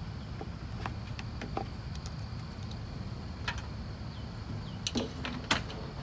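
Light plastic clicks and taps from handling an oil funnel and the oil-fill cap on a lawn mower engine, with a sharper click near the end, over a steady low background rumble.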